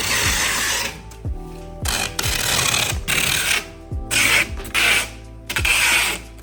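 Packing work: a run of irregular rasping, scraping bursts, some short and some over a second long, over background music.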